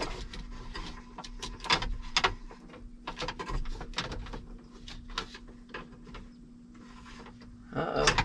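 Scattered clicks, taps and rattles of a truck's air brake park valve and its plastic air lines and fittings being handled and reconnected behind the dash, over a faint steady hum.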